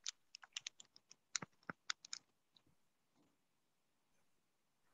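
Faint keys being pressed: a quick, irregular run of about a dozen light clicks lasting about two seconds.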